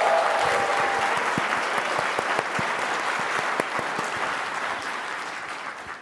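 Audience applauding, loudest at the start and slowly dying away toward the end.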